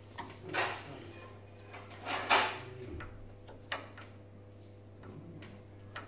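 Hand screwdriver turning a screw into the steel faceplate of a mortice deadlock in a wooden door: short grating scrapes of the screw biting, the loudest about two seconds in, and a sharp click near four seconds.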